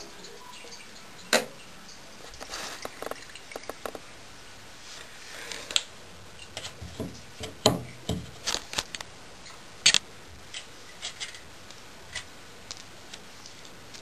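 Scattered clicks, taps and knocks of the washing machine's white plastic drain filter being handled and fitted, at irregular moments. The sharpest clicks come about a second in and near ten seconds, with a few duller knocks in between.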